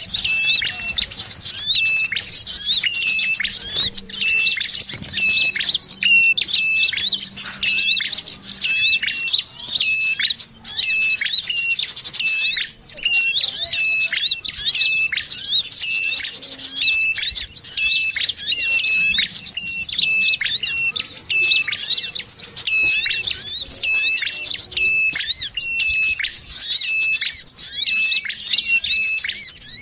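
Bird-lure recording of small songbirds calling: dense, rapid high-pitched chattering and twittering, with a short, clipped call repeated about once a second.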